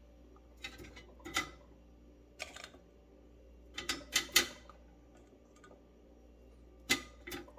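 Scattered light clicks and knocks, about eight in all, as seasoned potato halves and kitchenware are handled into an air fryer basket.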